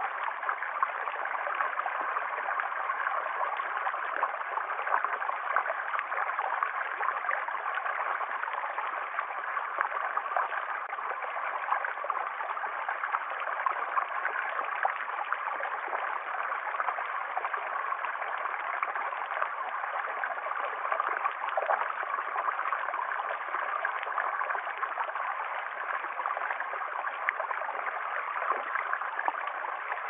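Shallow stream running over rocks: a steady rush of water with many small gurgles and splashes.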